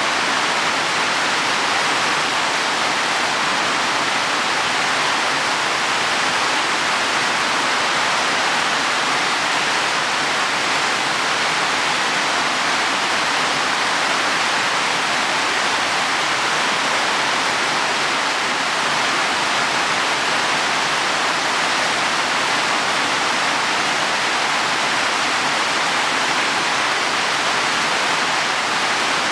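Heavy rain falling steadily on leaves and soil, a dense even hiss with no breaks.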